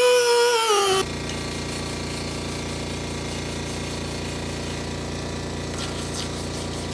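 Air-powered die grinder whining as it works a weld seam on cast bronze. Its pitch falls and it stops about a second in, and a steady low machine hum carries on after it.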